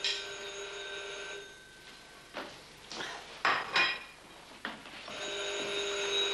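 A telephone ringing twice, each ring a steady electronic tone of about a second and a half. Between the rings come a few short clinks of dishes.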